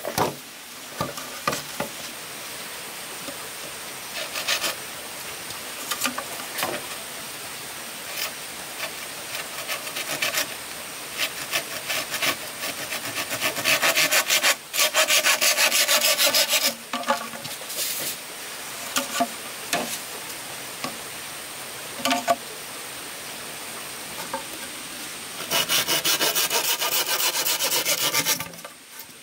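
A hand tool rasping and scraping on wood, as in sawing or shaving. It comes in two loud spells of about three seconds each, with quieter scraping and scattered knocks between.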